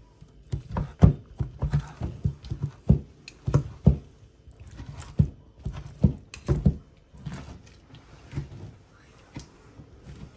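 Kitchen knife cutting through slow-braised beef and knocking on a wooden cutting board: a quick, uneven run of dull thunks that thins out after about seven seconds.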